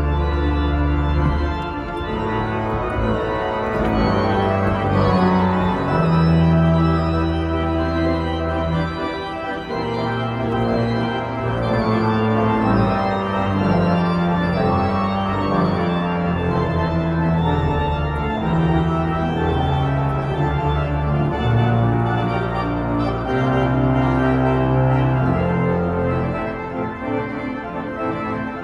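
Church pipe organ playing a piece: sustained chords on the manuals over a low bass line on the pedals, the pedal notes changing every second or two.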